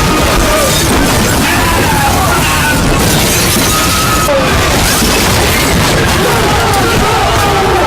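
Loud, dense film-soundtrack noise: music under continuous crashing and shattering sound effects, cutting off sharply at the end.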